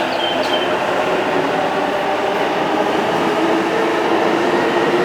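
Electric commuter train running at the station platform: a steady, loud running noise with a hum held at a few steady pitches.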